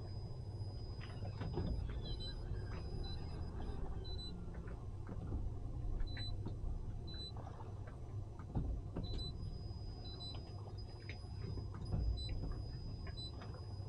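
Low steady hum of an idling boat engine, with scattered knocks and clunks from boats and gear.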